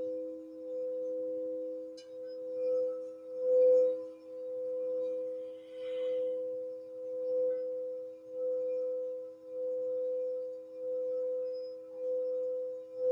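Crystal singing bowls sounding two steady, sustained tones, one higher and one lower, with the sound swelling and ebbing about once a second.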